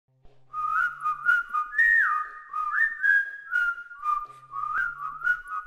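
Intro music: a whistled tune sliding between notes, over a light percussive beat of about two strikes a second.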